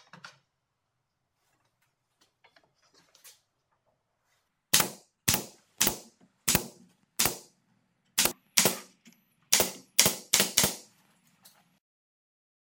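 Nail gun firing nails into the wooden frame of a jig: about eleven sharp shots, roughly one every half second, with a short pause partway through.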